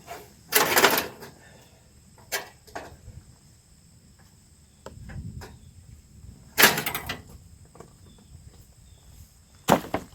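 Sharp knocks and clanks from hands-on work on a Woodland Mills 122 bandsaw sawmill head while it is opened up for a blade change. The knocks come singly about half a second in, twice around two and a half seconds, as a short rattling cluster around seven seconds, and once more near the end.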